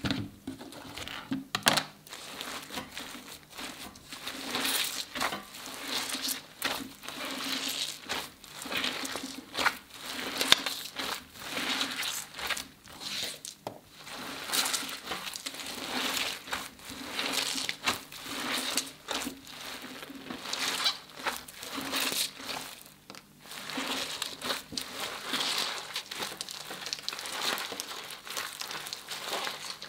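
Hands kneading and squeezing slime packed with metallic foil confetti: sticky squelching mixed with crinkling and crackling of the foil flakes, in uneven repeated squeezes.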